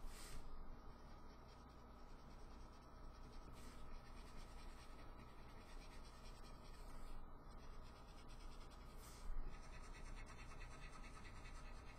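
Copic alcohol marker rubbing on paper in short strokes, blending colour over small drawn sprinkles; faint, with a few slightly louder scratchy strokes.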